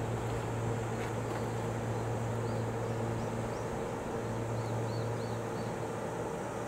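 JR West 227 series electric train standing at a platform, its onboard equipment giving a steady low hum with a fainter higher whine above it. A few faint bird chirps about four and a half seconds in.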